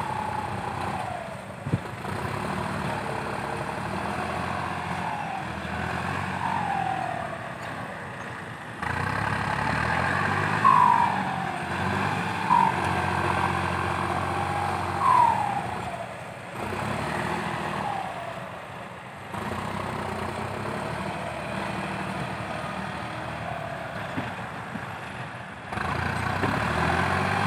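Komatsu PC120-5 excavator working, its diesel engine running steadily, with several brief falling whines.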